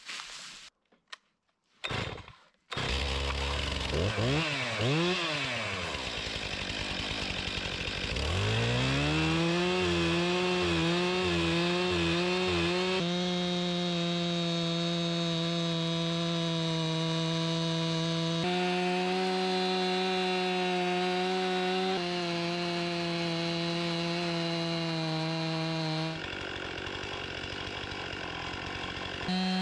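A chainsaw mounted in an Alaskan chainsaw mill starts about three seconds in and revs up and down. It then settles into a steady full-throttle whine as the bar rips lengthwise through a white pine log to cut a board.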